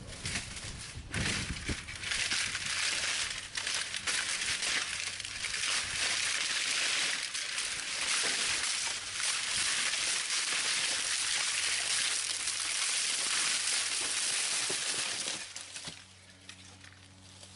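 Dense rustling and crunching of dry brush and dead leaves, full of small crackles, stopping about fifteen seconds in.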